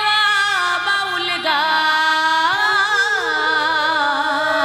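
A woman singing a Baul folk song, holding long notes that waver and glide in ornamented turns.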